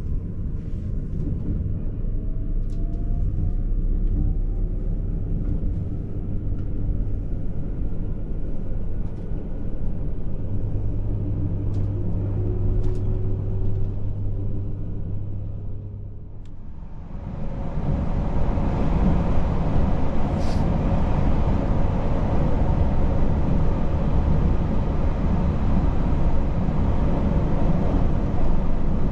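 Electric limited express train running, heard from inside: a steady low rumble of wheels on rail, with faint rising motor whine as it picks up speed. About 17 seconds in the running noise turns louder and hissier.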